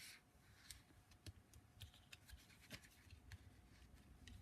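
Faint, scattered light ticks and rustles of a cardstock papercraft box being handled.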